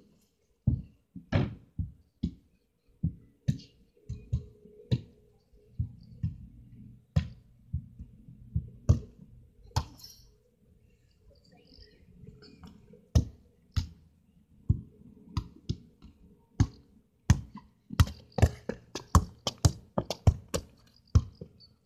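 Dull thuds and knocks of footsteps and a football close to a phone resting on paving slabs, spaced apart at first and crowding into a quick run of steps near the end.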